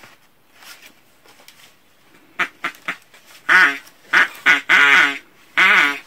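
A hand-held bird call (appeau) blown in cupped hands: a few light clicks, then a quick series of about five short calls that waver in pitch, in the second half.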